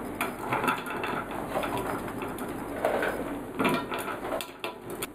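Wooden spoon scraping and knocking against a frying pan as honey-coated struffoli are pushed out onto a plate, with many small clicks throughout.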